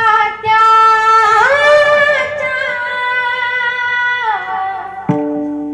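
A woman singing a Marathi devotional abhang in kirtan style, holding long drawn-out notes with an upward bend a little over a second in. Near the end a steady low note comes in.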